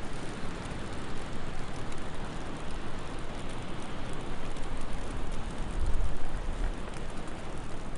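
Bonfire burning: dense crackling over a low steady roar, swelling briefly about six seconds in.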